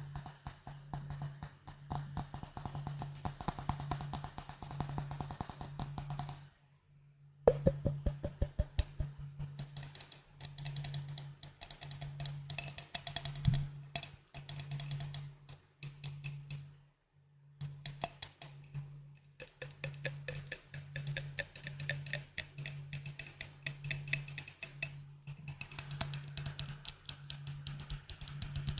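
Glass bottles tapped rapidly: a dense run of quick, ringing taps, stopping briefly twice, about a quarter of the way in and a little past halfway.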